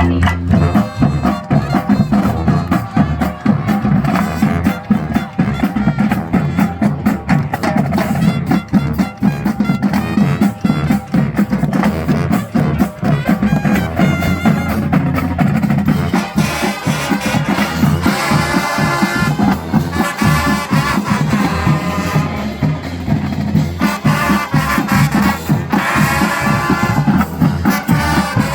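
Marching band playing: the drumline keeps a steady driving beat, and brass comes in strongly about halfway through.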